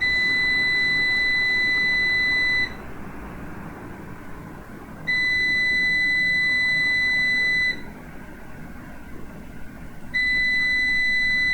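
Numeric 1 kVA UPS alarm beeper sounding long, high, steady beeps, each about two and a half seconds, repeating every five seconds; the third beep is still going near the end. It keeps beeping with both the UPS and its mains supply switched off, the sign of a fault that Numeric put down to the UPS's control board.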